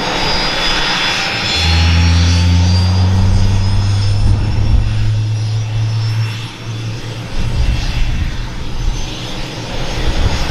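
An AH-64D Apache's General Electric T700-GE-701C turboshaft engine starting up, with a high turbine whine rising in pitch as it spools up and the main rotor beginning to turn. A deep steady hum joins about a second and a half in and drops away after about six seconds.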